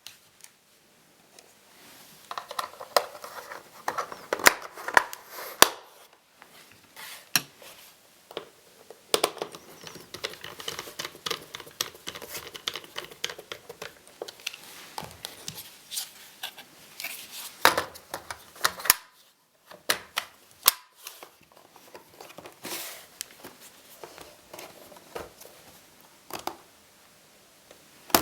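Hands working on a laptop's plastic casing and parts: irregular sharp clicks, taps and rustling, with a couple of brief pauses.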